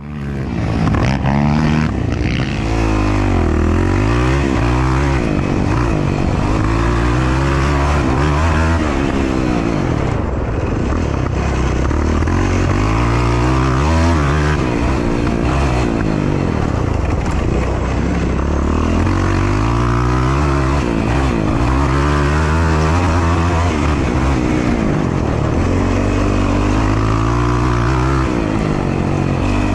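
Yamaha YFZ450R quad's single-cylinder four-stroke engine under racing throttle, its pitch climbing and dropping again and again as the rider accelerates, shifts and backs off, heard from on board.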